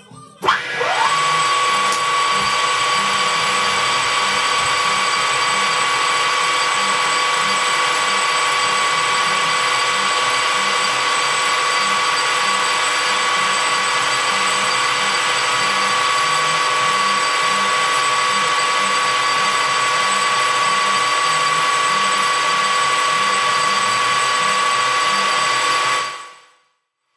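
Small bench metal lathe starting up with a brief rising whine, then running steadily with a constant high whine from its motor and gears. Near the end the sound fades out briefly.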